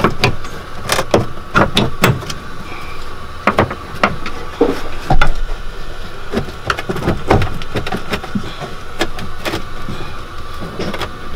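Irregular metal clanks and knocks of hand tools and driveshaft parts being worked by hand in a Polaris RZR's centre tunnel, with one louder knock about five seconds in, over a steady faint hum.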